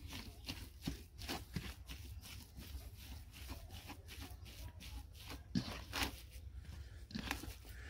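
Hands kneading and mixing chicken mince with spices in a wide metal tray (parat): irregular soft handling strokes, several a second, over a faint low hum.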